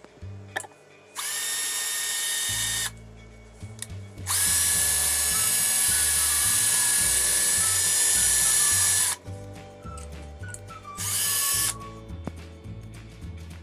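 A small power tool's motor running at a steady speed with a high whine and hiss, in three runs: a short one, a long one of about five seconds, then a brief one near the end. Background music with a repeating bass line plays underneath.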